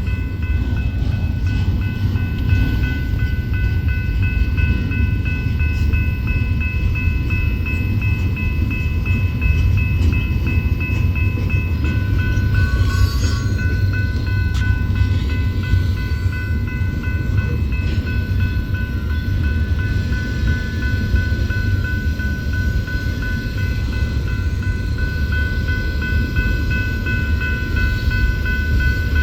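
A train rolling by with a continuous low rumble. Several steady high-pitched tones run over it throughout.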